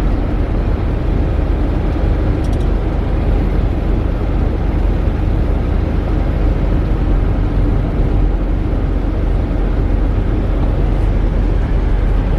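Steady road and engine noise heard from inside a moving vehicle, a low, even rumble with no change.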